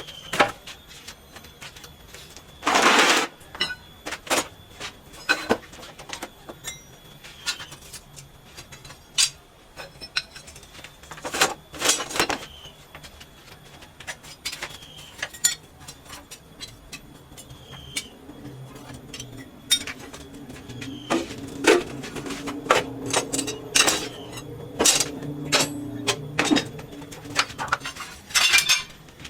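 Scattered knocks, clatters and scrapes of hand work as a cluttered workshop floor is cleared, with a longer scrape about three seconds in and a busier run of knocks near the end. Birds call in the background.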